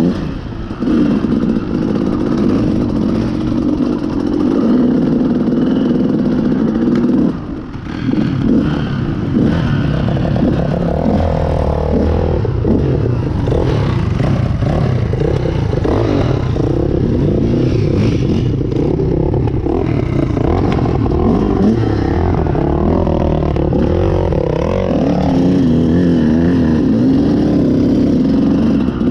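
Dirt bike engine under way, the revs rising and falling continuously as the throttle is worked, with a brief drop in level as the throttle closes about seven and a half seconds in.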